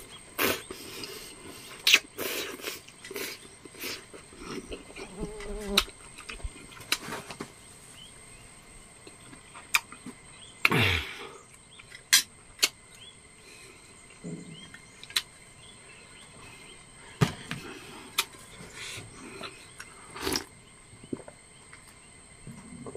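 A man eating instant noodles with chopsticks from a metal bowl: repeated slurps of noodles and soup and chewing, with sharp clicks scattered through. The longest slurp comes about eleven seconds in, and a faint steady high whine runs underneath.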